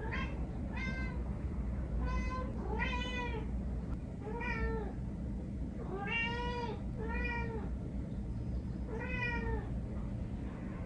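Domestic cat meowing repeatedly, about nine short calls that each rise and fall in pitch.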